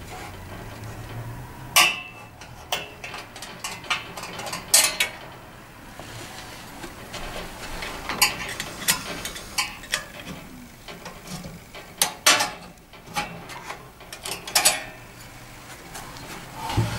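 Irregular metallic clicks, taps and light knocks as the glass front frame of a Bellfires Horizon Bell balanced-flue gas fire is worked loose with a flat release tool hooked over its top edge. The louder knocks come about 2, 5, 12 and 15 seconds in.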